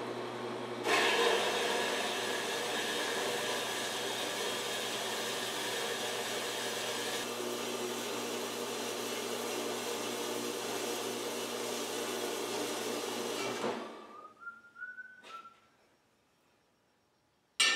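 A power tool's motor running steadily for about thirteen seconds, then shut off abruptly, followed by a short sharp clink near the end.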